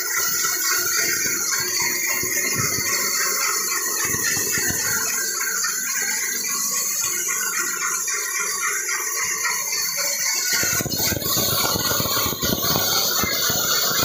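Band saw ripping a thick mahogany plank: a steady, dense hissing noise of the blade cutting through the wood, turning heavier and lower-pitched about ten seconds in.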